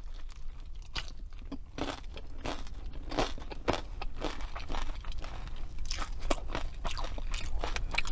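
Close-miked eating of fast food: repeated crunchy bites and chewing, with irregular crackling crunches throughout.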